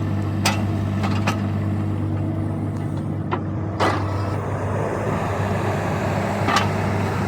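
Bobcat E26 mini excavator's diesel engine running steadily, with several sharp knocks and clanks spread through as debris is worked by the bucket.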